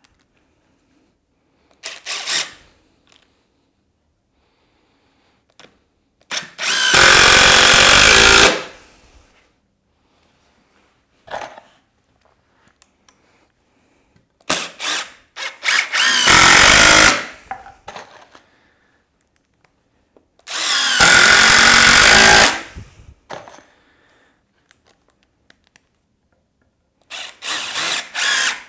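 Red cordless drill/driver driving screws down through 2x4 cross pieces into a workbench leg frame, in three long runs of a second or two each with short blips between.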